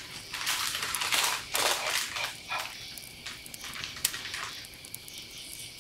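Crinkling and rustling of MRE packaging as foil and plastic ration pouches are handled and opened, in irregular bursts over the first few seconds, then quieter.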